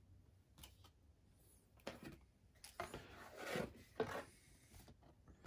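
Cardboard punchboard sheets rubbing and sliding against each other and the game box, with a few light taps. The loudest part is a scraping slide a little past the middle, ending in a sharp tap as a sheet is set down in the box.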